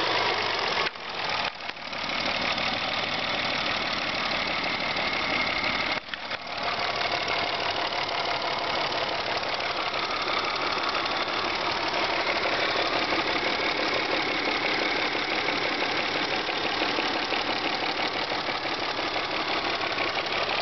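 Car engine running with a knock that the owner is recording as a fault. The running is steady apart from brief dips in loudness twice near the start and once about six seconds in.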